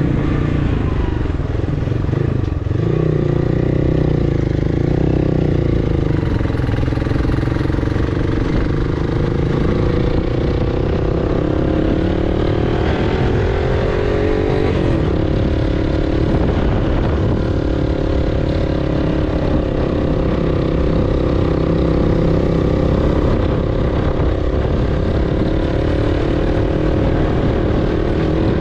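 Motorcycle engine running while riding, heard from on the bike over a steady low rumble of wind. The engine note dips about two seconds in, then rises for a few seconds near the middle before dropping back.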